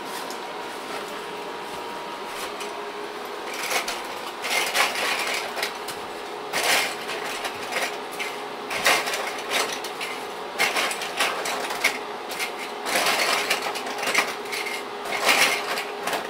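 Steady room hum, then from about three and a half seconds in, irregular rustling and clunks of a backpack being handled and rummaged through.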